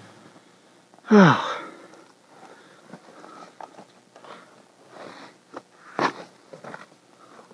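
Footsteps crunching in snow beside a pickup, with scattered small clicks and a sharper knock near the end. About a second in there is one short sound that falls steeply in pitch.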